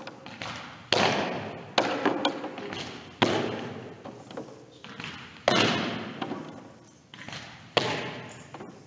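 Softballs smacking into leather gloves and onto a hardwood gym floor: a sharp thud every one to two seconds, about five loud ones with smaller taps between, each ringing out in a long echo through the gymnasium.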